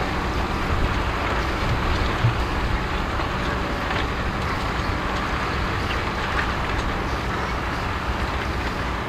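Valtra tractor's diesel engine running steadily under load, pulling a five-furrow reversible plough through the soil.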